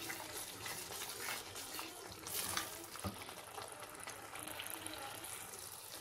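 Chopped masala sizzling and bubbling in oil in a steel pot, stirred with a wooden spoon that scrapes and taps against the pot now and then.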